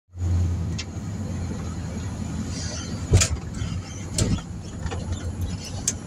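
Steady low engine and road hum heard from inside a moving vehicle's cabin, with a few sharp knocks or clicks, the loudest about three seconds in.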